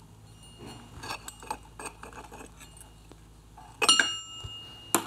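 Clutch plates of an Aermacchi 350 motorcycle engine being worked out of the clutch basket with bent-wire hooks: light metallic clicks and scrapes, then a sharp clink with a brief ring about four seconds in, and another sharp click just before the end.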